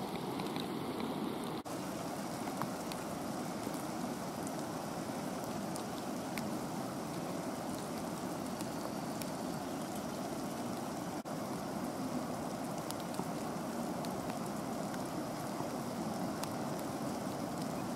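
Steady rushing of falling water, with faint scattered ticks and two brief dropouts.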